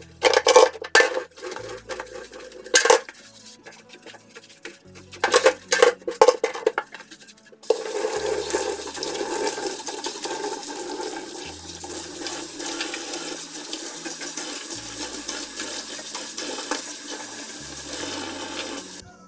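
Dishes and cutlery clattering against each other in a kitchen sink for several seconds, then a tap running steadily for about eleven seconds before it is shut off.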